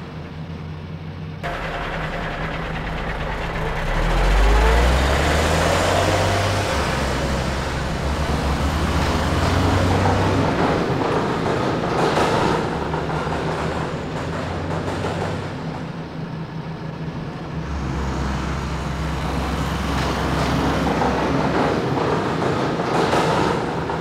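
Dump truck engine sound effect running steadily and revving up in steps, under a continuous rushing noise of gravel pouring from its tipped bed.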